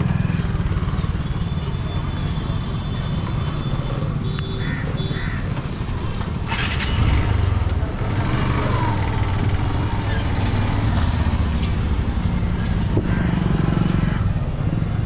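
Yamaha 155 cc motorcycle engine running at idle, then pulling away into busy street traffic near the end, with other motorcycles and scooters passing.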